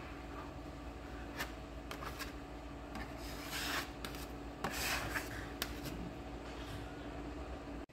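Hand sanding on car bodywork: irregular swishing strokes of abrasive paper on a panel, with a few sharp clicks and a faint steady hum underneath. The sound cuts off abruptly near the end.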